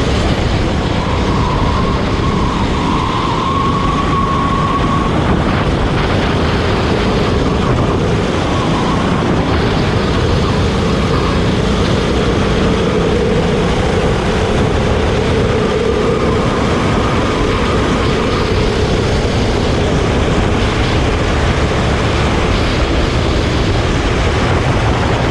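Go-kart engine running hard, its pitch drifting up and down as the kart speeds up and slows, over a dense steady rush of noise.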